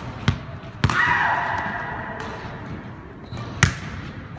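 Volleyball being struck and bouncing on a hard court floor: three sharp thuds in a big echoing hall, the loudest near the end, with a high squeal ringing and fading for about a second and a half after the second thud.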